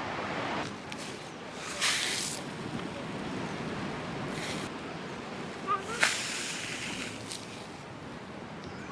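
Steady wash of sea surf on a beach, with a few short hissing bursts and a sharp click about six seconds in.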